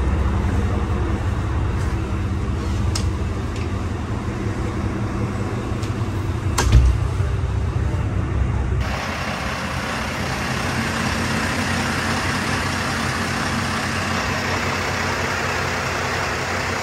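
Steady machinery hum from the boat's onboard equipment running, low and even, with a single dull thump a little before halfway. About halfway through, the sound changes abruptly to a broader, hissier running noise.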